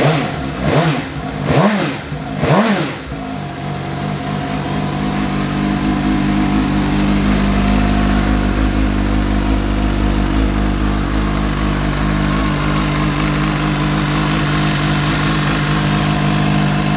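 2020 Suzuki GSX-S750's inline-four engine, blipped three times in the first three seconds, then idling steadily. It runs smooth as a sewing machine, 'sweet as a nut'.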